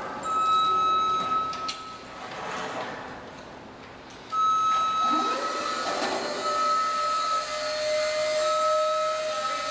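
Construction-site power-tool noise: a steady high whine that cuts in and out. About five seconds in, an electric motor spins up and then runs at a steady pitch.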